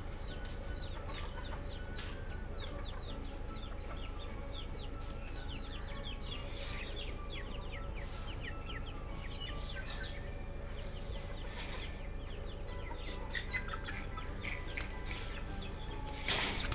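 Broiler chickens clucking, with many short falling chirps over a steady low hum, and a louder, harsher sound near the end.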